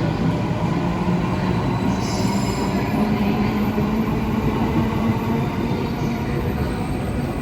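Electric train running along a station platform: a steady rumble of wheels and motors, with a brief faint wheel squeal about two seconds in.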